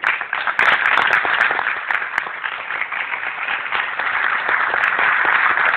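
Audience applause, many people clapping together; it breaks out suddenly and holds steady.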